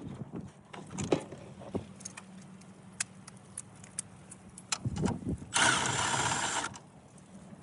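Scattered clicks and knocks of hand work on a car's front end as the headlight units are worked free. About a second-long loud burst of noise comes near the end.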